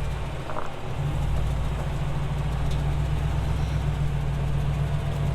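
Engine of an off-road vehicle running steadily at low revs, a constant low hum with no change in speed.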